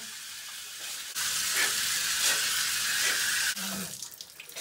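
Shower spray hissing steadily, much louder from about a second in, then cut off suddenly about three and a half seconds in as the shower valve is turned off; a few faint knocks follow.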